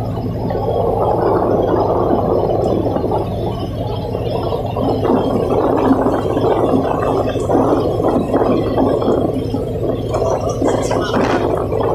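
Churning, gurgling water over the steady low hum of a tugboat's diesel engines.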